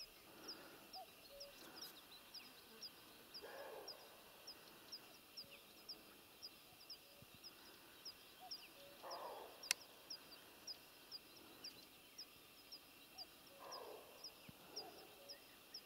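Faint open-meadow ambience: a steady series of short, high chirps about two a second, with three faint hoarse calls a few seconds apart and a single sharp click near the middle.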